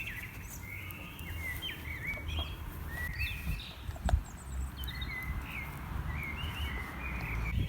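Songbird singing a run of short chirping, warbling phrases. Under it a low rumbling noise, with one sharp click about four seconds in.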